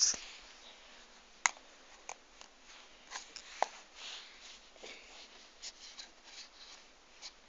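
Handling noise from a phone being moved about: a scuff at the start, then scattered clicks and taps with patches of rubbing and rustling.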